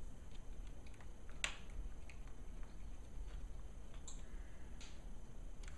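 Faint, scattered clicks and ticks of a small screwdriver driving screws back into a laptop's screen bezel, with one sharper click about one and a half seconds in.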